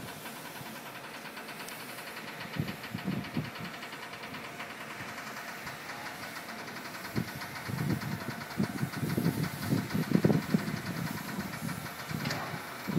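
A machine engine running steadily with a fast, even ticking, mixed with irregular low rumbling surges that grow stronger about seven seconds in.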